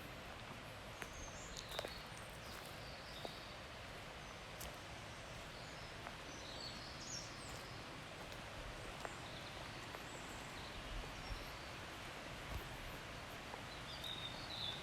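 Forest ambience: a steady soft hiss under short, high bird chirps that come every second or two. Faint light ticks and snaps are scattered among them.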